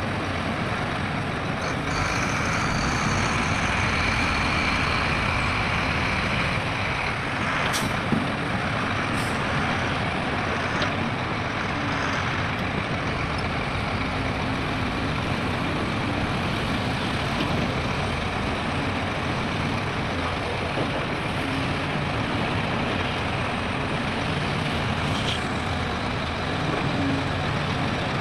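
Heavy diesel earthmoving machinery and dump trucks running steadily, with a high whine for a few seconds starting about two seconds in and a couple of sharp clanks around eight to nine seconds in.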